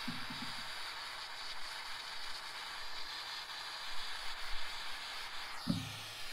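Small hose-fed pencil torch hissing steadily while its flame tip melts lumps of old solder off a radiator tank seam. Near the end the hiss falls in pitch, and a short low sound is heard.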